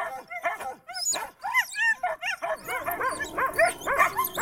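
Many Alaskan huskies in sled harness barking and yelping at once, short overlapping calls several a second that grow denser from about halfway. This is the clamour of sled dogs waiting to run; they fall quiet once they are running.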